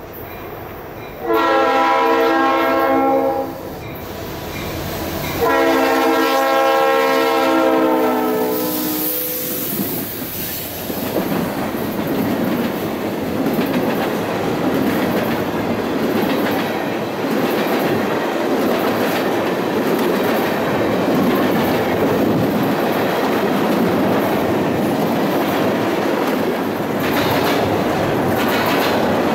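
Leslie RS-3L three-chime horn on a Norfolk Southern SD60 locomotive sounding two long blasts, the second dipping in pitch at its end as the locomotive passes. Then a string of loaded ethanol tank cars rolls past with steady wheel and rail clatter.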